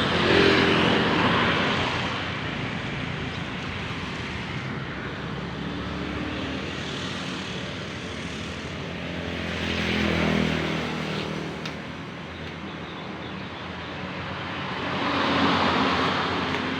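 Road traffic: motor vehicles passing one after another over a steady rumble. The sound swells as a vehicle goes by just after the start, again about ten seconds in, and near the end.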